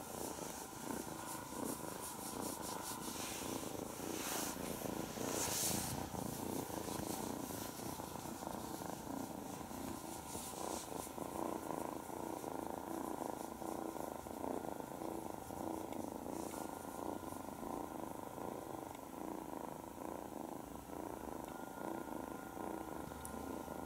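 A nine-week-old kitten purring steadily and continuously while being stroked under the chin, with a brief rustle about five seconds in.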